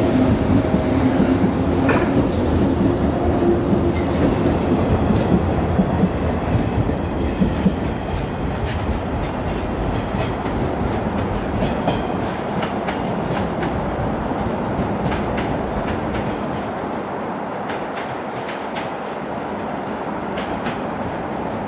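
JR 185 series electric multiple unit pulling out past the platform: a steady motor hum at first, then the wheels clicking over rail joints, getting gradually quieter as it moves away.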